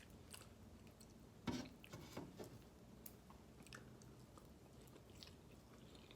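Faint close-up mouth sounds of chewing fried chicken: scattered soft crunches and wet smacks, the loudest about a second and a half in.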